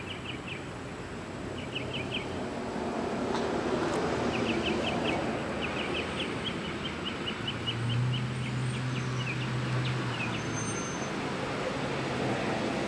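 Outdoor background: small birds chirping in quick runs of short, high notes over a steady wash of traffic noise, with a low engine hum for a few seconds past the middle.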